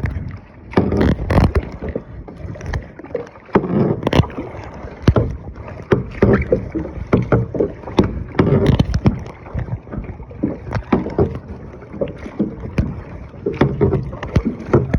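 Kayak paddling: paddle strokes splashing water, with frequent irregular knocks and bumps.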